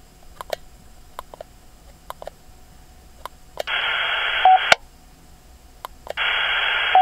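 GME XRS Connect UHF CB radio speaker: a few faint clicks, then two bursts of radio static about a second long, each with a short beep in it. This is the repeater tower sending the transmission back on a duplex channel, the sign that the radio is connected to the repeater.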